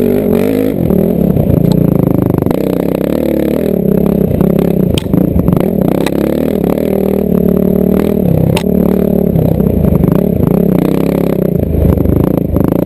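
Yamaha WR450F dirt bike's single-cylinder four-stroke engine running on a trail ride, its pitch rising and falling again and again as the throttle is opened and shut. A few sharp clicks and knocks come from the bike over the rough ground.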